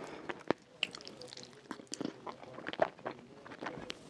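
Close-miked ASMR chewing of soft, sauce-soaked rfissa (shredded flatbread and chicken), with irregular wet mouth clicks and smacks; the sharpest smack comes a little before three seconds in.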